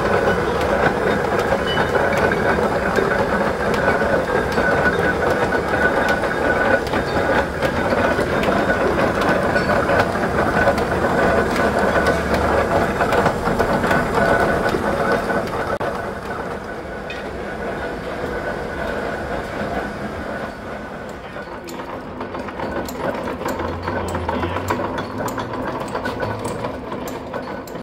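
Large antique J. J. McCabe lathe running, its gears clattering steadily. The sound gets quieter about two-thirds of the way through.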